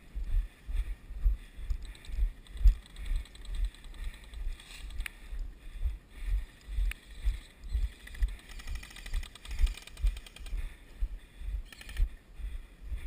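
Footsteps of a person walking, about two a second, heard as low thuds through a body-worn camera, with rustling and two sharp clicks around the middle.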